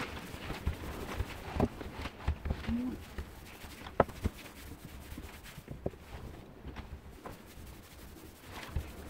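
Cloth rubbing linseed oil into an oak tool handle, with scattered light knocks and taps as the handle and oil jar are handled on the wooden workbench, the sharpest tap about four seconds in.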